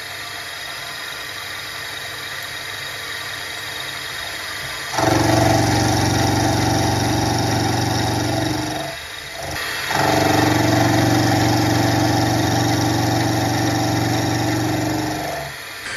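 Milling machine running as its end mill cuts a step into a metal bar clamped in the vise. A steady motor hum grows much louder with a steady whine from about five seconds in, drops briefly near nine seconds, then comes back.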